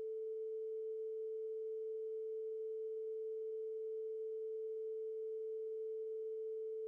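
A steady, unbroken pure tone a little below 500 Hz. It is an audio redaction bleep laid over the bodycam sound in editing, and it blanks out everything else.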